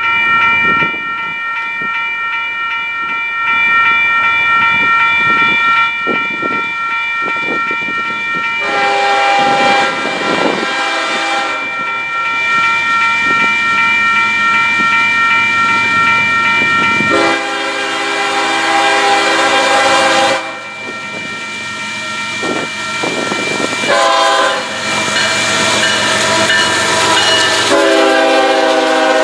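Union Pacific freight train approaching and passing, its Nathan K5HL five-chime air horn sounding the grade-crossing pattern: two long blasts, one short, and a long one starting near the end. Wheels clack louder as the locomotives draw level.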